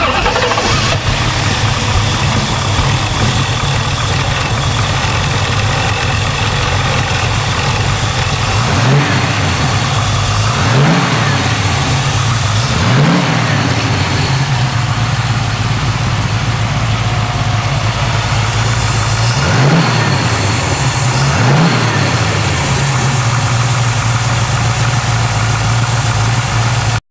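GM 383 stroker small-block V8 breathing through three Rochester two-barrel carburettors and dual exhausts, idling steadily. It is blipped up and back down five times: three quick revs in the middle and two more later on.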